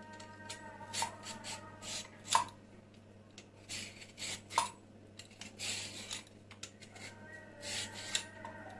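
A raw carrot being scraped against a metal kitchen tool as it is peeled and grated: irregular rasping strokes, with a few sharp metallic clinks about one, two and a half and four and a half seconds in.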